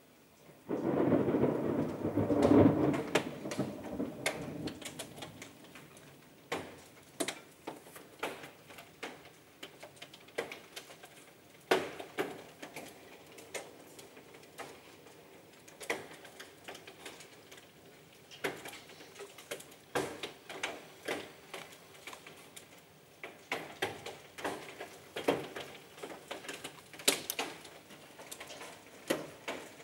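A peal of thunder about a second in, loud and low, fading away over about four seconds. Then hailstones strike a corrugated roof as scattered sharp clicks, a few a second, coming more often near the end.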